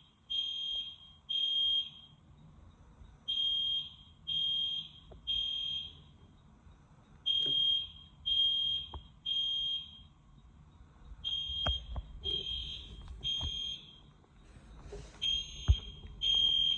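EST Genesis fire alarm horn sounding a high-pitched, smoke-detector-like tone in the temporal-three evacuation pattern: three short beeps, a pause, repeating about every four seconds. A few faint clicks fall between the beeps.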